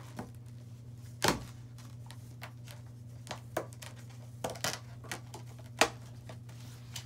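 A yellow latex modelling balloon being knotted and handled: a few short, sharp rubber squeaks and snaps, the loudest about a second in and near the end, over a steady low hum.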